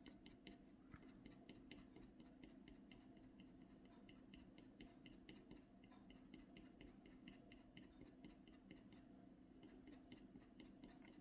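Faint, rhythmic scratching of a blade or scratch tool across a clay-coated Ampersand scratchboard, short strokes at about three a second, scraping off the ink layer.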